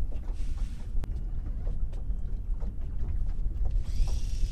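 Steady low wind rumble on the microphone aboard a small fishing boat, with a sharp knock about a second in. Near the end a hiss starts as a heavy sturgeon rig is cast and line runs off the reel.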